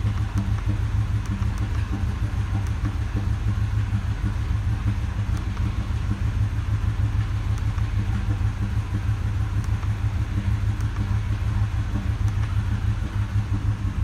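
Ford 6.2L V8 gasoline engine idling roughly with a multiple-cylinder misfire, a steady, uneven low rumble. The misfire comes from a broken exhaust valve spring.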